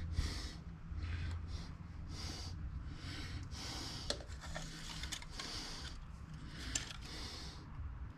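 Quiet breathing near the microphone and faint handling noise while a steel tape measure is drawn out against a lathe's steady rest, with two sharp clicks about four and seven seconds in.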